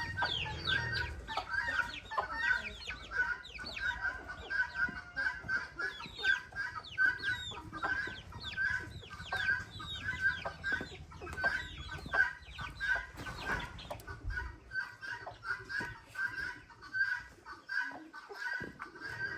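Chickens clucking, with many short high calls falling in pitch and a steady, repeated call. A low rumble underneath stops about three quarters of the way through.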